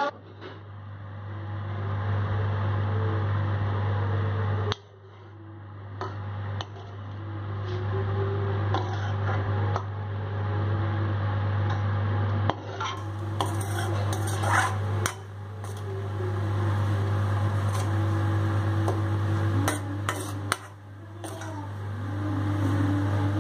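A metal ladle clinking and scraping against an aluminium wok while the dry fish is stirred, over a steady low hum.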